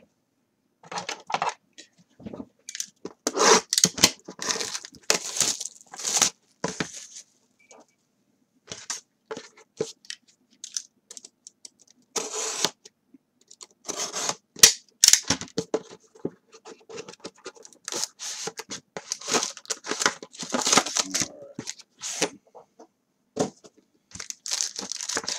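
Trading-card packs being torn open, with wrappers crinkling and cards handled, in irregular bursts of tearing and rustling with brief pauses between.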